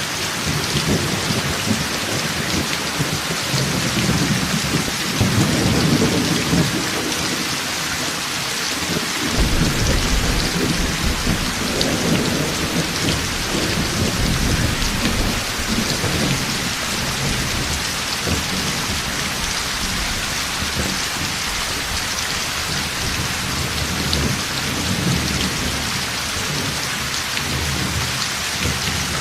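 Heavy rain falling steadily, with rolling thunder rumbling underneath. The thunder swells about five seconds in, then more strongly from about ten seconds, easing off after about sixteen seconds with a weaker rumble near the end.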